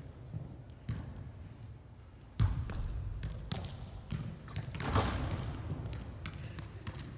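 Soccer ball being juggled: irregular thuds of the ball against foot and thigh, roughly one or two touches a second, with one louder thump about two and a half seconds in.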